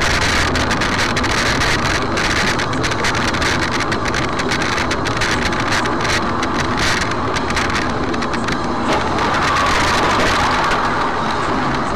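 Steady road, tyre and engine noise of a car driving at highway speed, heard from inside the cabin through a dashcam microphone, with scattered faint clicks in the first half.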